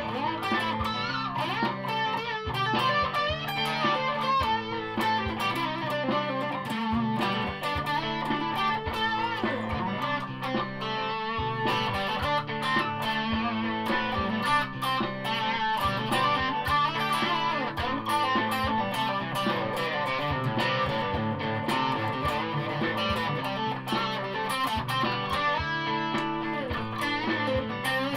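DeVille Stratocaster-style electric guitar played through an amplifier: a continuous passage of picked notes and strummed chords with steady volume.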